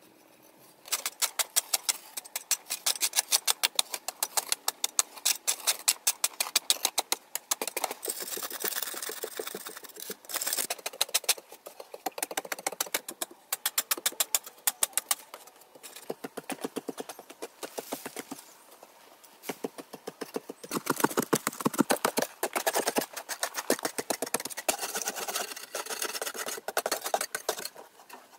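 Metal hand tools chipping and scraping at a hard packed-earth wall: quick sharp scrapes and knocks, several a second, in runs with short pauses, starting about a second in.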